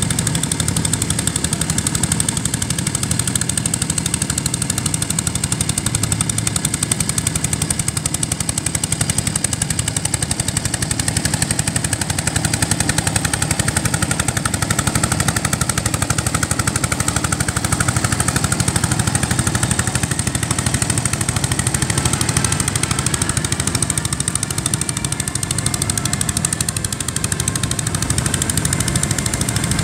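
Small vintage Énergic tractor's engine running steadily under load as it pulls a plough through the soil, with a fast, even beat of exhaust pulses.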